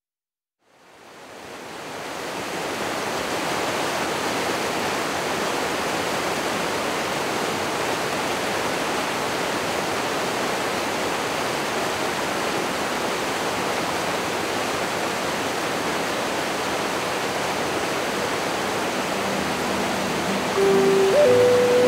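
Steady rushing noise, like falling or flowing water, fading in over the first few seconds and then holding even. A few sustained musical tones come in near the end.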